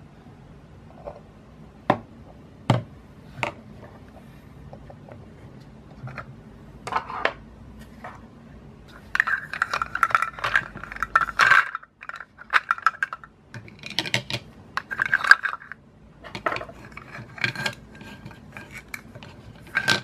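Plastic toy cookware handled: a few sharp plastic clicks, then bursts of scraping and clattering as a plastic toy spoon works toy food in a plastic toy pot and onto a plastic plate.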